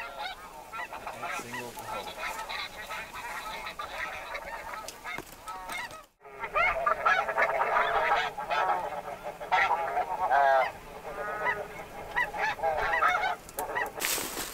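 Snow goose calls: many overlapping high, yelping honks from a large flock, with a brief break about six seconds in, louder after it.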